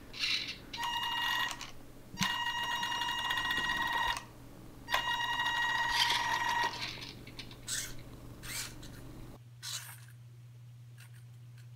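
Small electric drive motor of a Raspberry Pi RC car whining at low throttle in three short bursts, each holding a steady pitch.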